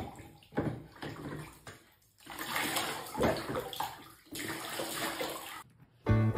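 Water spraying from a handheld shower head onto a cat standing in a bathtub, running in steady spells with a short break midway. A few sharp knocks come in the first two seconds, and music begins right at the end.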